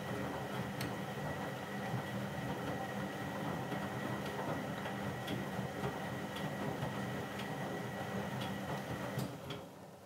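Eudora Supernova 1002 front-loading washing machine tumbling a large sudsy load on its 60°C colour programme: a steady motor hum with scattered clicks as the laundry falls in the drum. About nine seconds in, the motor cuts out and the drum stops.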